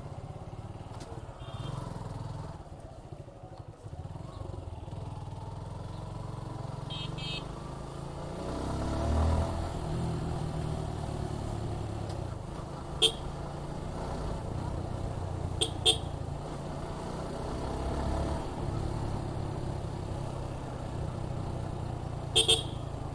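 Suzuki Gixxer 155's single-cylinder engine running under way with a steady low rumble, swelling for a couple of seconds as the bike picks up speed. Short horn toots sound once and then twice in quick succession, then another double toot near the end.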